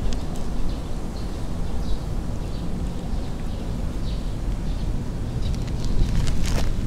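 Steady low outdoor rumble with faint bird chirps now and then, and a few short clicks near the end.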